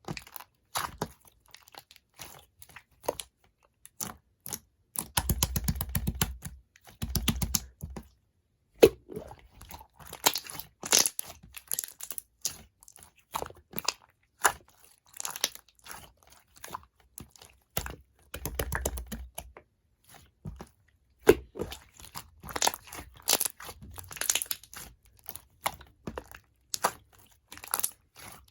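Clear slime, reworked from an ice slime, being pressed, folded and stretched by hand: irregular sticky clicks, pops and crackles, thickening into longer runs of crackling about five and eighteen seconds in.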